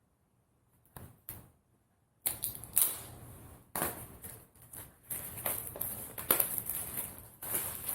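Packaging being opened by hand: a couple of soft clicks, then from about two seconds in a busy run of crinkling, scraping and sharp clicks of cardboard and paper.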